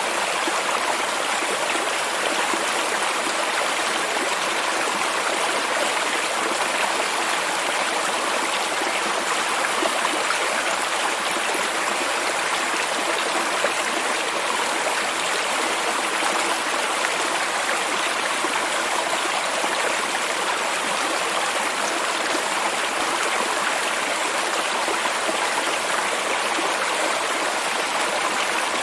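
Steady rushing and babbling of a stream of flowing water, an even, unbroken wash of sound.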